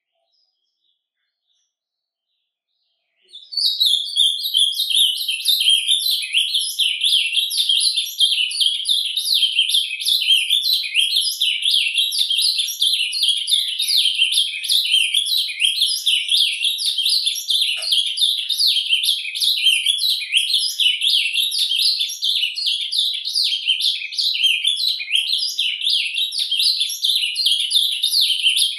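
Male ultramarine grosbeak (azulão) singing surdina, its whisper song. After about three seconds of silence a continuous, rapid stream of high twittering and chattering notes starts and runs on without a break.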